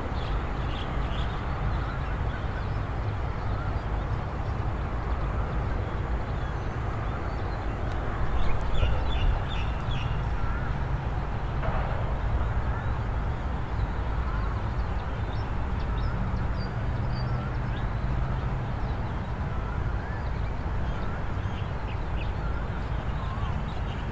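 Dawn countryside ambience: many birds chirping and calling over a steady low rumble, with a brief louder cluster of calls about eight seconds in.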